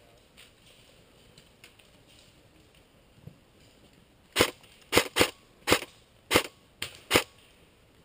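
Airsoft gun firing seven sharp single shots at an uneven pace over about three seconds, starting a little past the middle.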